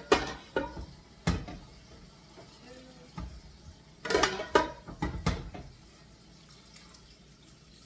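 A utensil clanking against stainless steel cooking pots while tomato sauce is scooped into a measuring cup: a few sharp knocks near the start, then a quick cluster of clanks about four to five seconds in.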